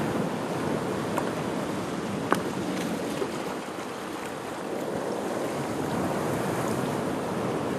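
Sea waves washing over a rocky shore in a steady rush of surf, with a few sharp clicks, the loudest about two and a half seconds in.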